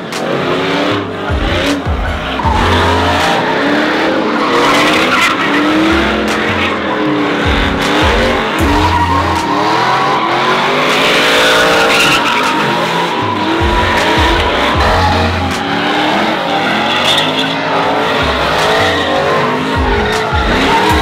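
Pickup truck engines revving up and down hard through a burnout, with the rear tires squealing and spinning on the pavement.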